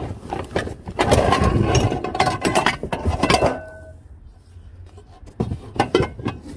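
Cookware being handled in a cardboard box: metal pans and bowls knocking and clanking against each other, with a cloth sleeve rubbing over the microphone for the first few seconds. A few sharper knocks come near the end.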